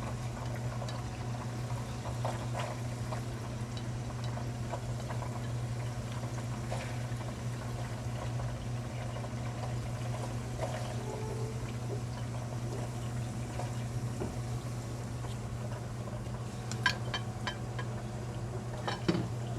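Tofu slices frying in hot oil: a steady sizzle with scattered small pops and crackles, over a steady low hum. A few sharp clicks near the end.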